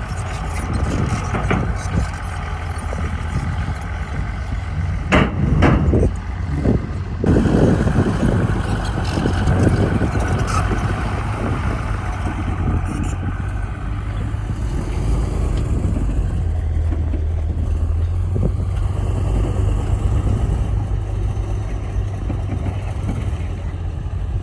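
Heavy diesel earthmoving machinery running steadily with a low engine rumble. A few short clanks come about five to seven seconds in.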